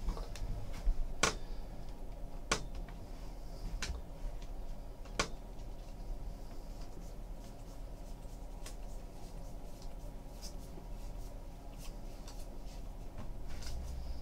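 A stack of 2015 Bowman Draft baseball cards being thumbed through by hand, one card at a time. The cards slide and tap, with a sharp click about every second and a half over the first five seconds and softer ticks after.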